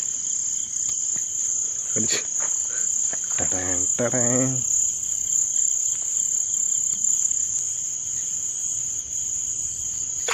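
Steady, high-pitched chirring of insects, with a fainter lower band beneath it. A person speaks briefly about three and a half seconds in, and there is a single click about two seconds in.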